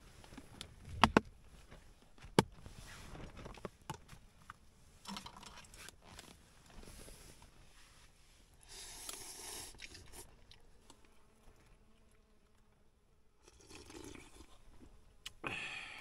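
Three sharp clicks in the first few seconds, then a man slurping and chewing instant noodles in bouts.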